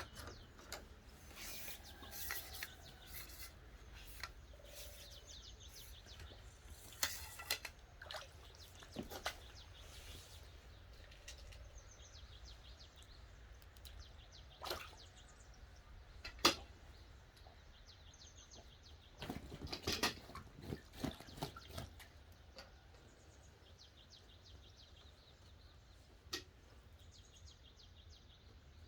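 Quiet open-air ambience by a reservoir: a low rumble of wind on the microphone, faint bird chirps, and scattered sharp clicks and knocks, a small cluster of them about two-thirds of the way through.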